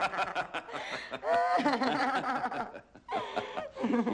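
A woman laughing heartily, her laughter coming in several bursts with short breaks between them.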